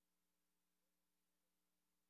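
Near silence: only a faint, steady hum and hiss.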